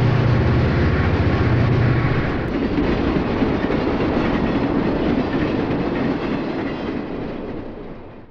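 Diesel freight train running past: a steady low engine hum for the first couple of seconds, then the continuous rumble of the train rolling by, fading out near the end.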